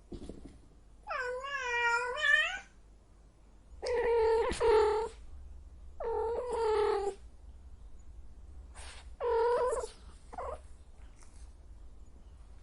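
Female cat in heat yowling: four drawn-out calls with a wavering pitch, a few seconds apart, and a short one after the last.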